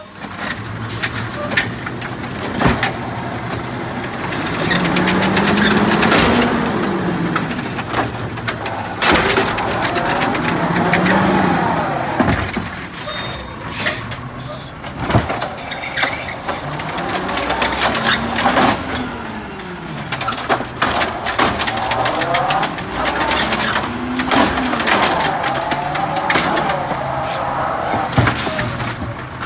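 Automated side-loader garbage truck working its hydraulic arm to empty curbside carts. The diesel engine revs up and back down about four times as the arm cycles, with several sharp clanks of carts and arm against the truck.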